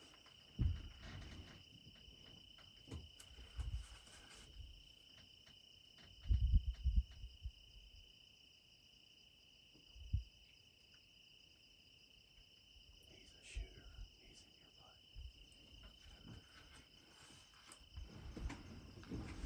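Insects trilling steadily at a high pitch, with a few soft low bumps, the loudest about six seconds in.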